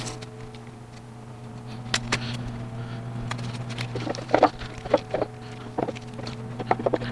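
Tape being peeled off wooden boards in short crackling tugs, with small knocks of the boards being handled, over a steady low hum.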